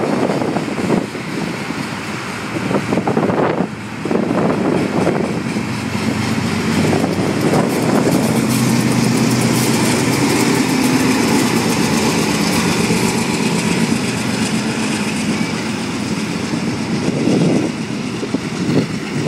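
Diesel freight train rolling past at close range, with a steady rumble of the rolling cars. A mid-train diesel locomotive passes in the middle, adding a steady engine drone that fades as the hopper cars follow.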